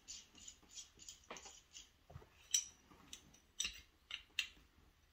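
Small clicks and taps of a field-stripped PSA Dagger Compact 9mm pistol's parts being handled. A run of faint ticks comes first, then a few sharper clicks in the second half.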